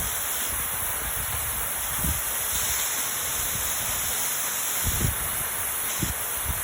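Waterfall pouring down in a steady rushing roar, with a few brief low buffets of wind on the microphone.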